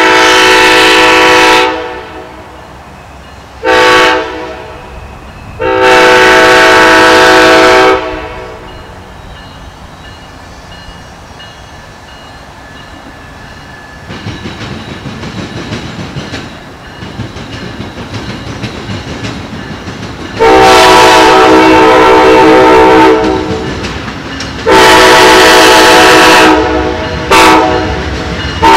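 Amtrak GE P42DC diesel locomotive's air horn sounding a series of blasts: long, short, long, then, after a lull, long, long, short, long, the standard grade-crossing signal. In the lull the rumble of the approaching train grows louder.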